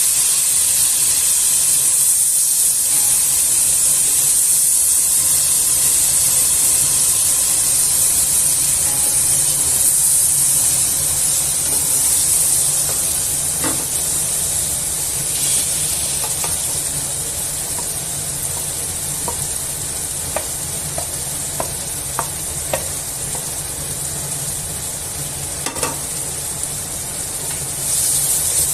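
Oil sizzling in a pan as potato and cauliflower fry for aloo gobi. The sizzle eases a little about halfway through, and scattered light clicks come in the second half.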